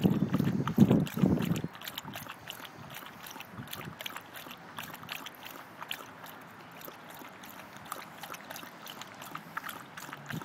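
A dog lapping water from a bowl: a long, even run of quick wet laps. A louder low rumble sits under the laps for about the first second and a half.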